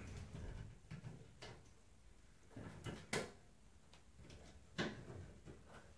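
A few faint, scattered knocks and clicks from handling the sheet-metal file cabinet during assembly, the loudest about three seconds in.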